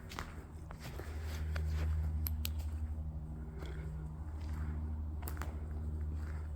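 Footsteps walking through a large empty building, with scattered short clicks and scuffs, over a steady low rumble.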